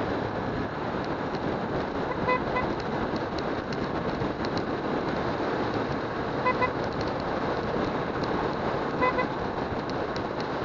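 A motorcycle riding on a wet road: steady wind, engine and tyre noise. A horn gives two quick toots three times: about two seconds in, past the middle, and near the end.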